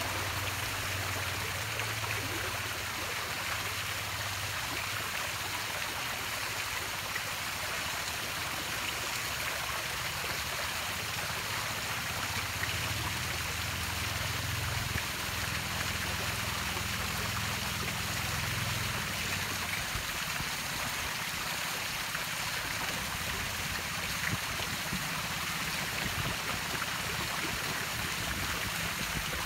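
Steady rushing of water, with a low hum underneath that fades out about two-thirds of the way through.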